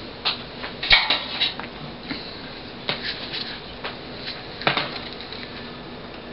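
Tools and small hard objects handled on a workbench while soldering: a few clusters of light clinks and clatters, about a second in, around three seconds in, and one sharp knock near the end.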